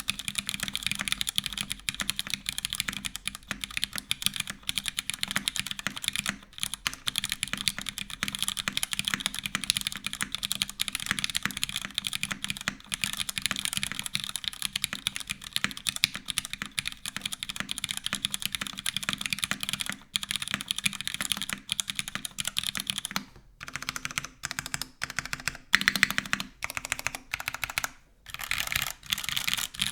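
Typing on a custom mechanical keyboard with stock Cherry MX2A Black linear switches in a full aluminium plate, with no foam dampening and GMK keycaps: a fast, dense run of key clacks. About 23 seconds in, the typing breaks into slower, separate strokes with a few louder, deeper presses, then picks up again near the end.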